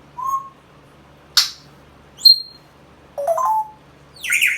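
A pet parrot making a string of five short whistles, squeaks and a sharp screech, one after another with brief pauses between them. The screech and a high whistle in the middle are the loudest.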